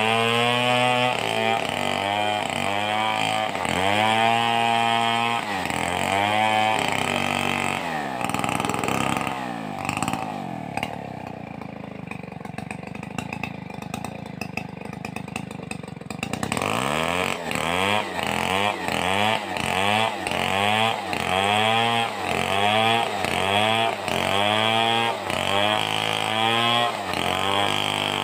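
Stihl 038 two-stroke chainsaw revving up and down repeatedly, dropping back to a quieter idle for about six seconds in the middle, then revving again in quick pulses about once a second.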